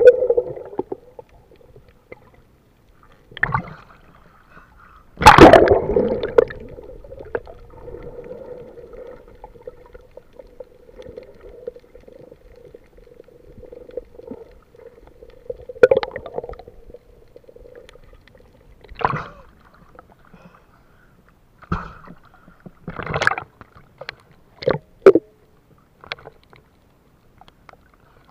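Water heard through an action camera's waterproof housing, in and just under the sea: muffled gurgling and sloshing with scattered sudden knocks and splashes, the loudest about five seconds in, and a faint steady hum in the middle stretch.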